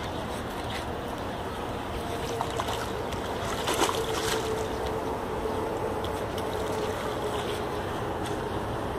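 A hooked fish thrashing and splashing at the water's surface beside a landing net, with a cluster of splashes about four seconds in, over steady wind noise on the microphone.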